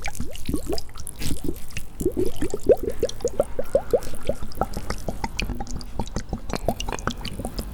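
A rapid run of small wet bubbles and drips popping, several a second, each a short upward blip in pitch, over a steady low rumble.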